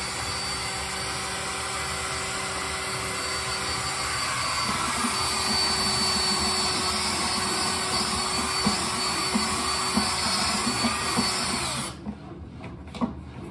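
Cordless drill running steadily, spinning a dryer-vent cleaning brush on threaded rods through the wall duct, with irregular knocking underneath from about halfway. The drill stops suddenly near the end, leaving a few small clicks.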